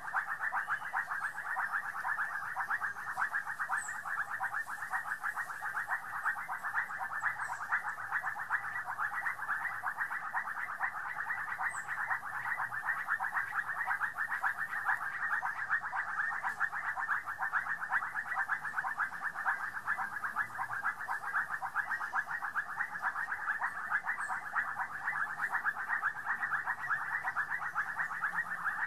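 A steady chorus of calling animals: a dense, fast trill that never lets up, with a few faint, short high chirps over it.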